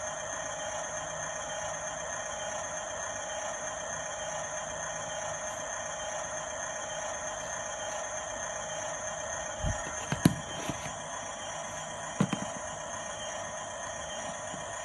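RC model bulldozer's electric drive motors and gearboxes whining steadily, with a few sharp knocks about ten seconds in and again about twelve seconds in.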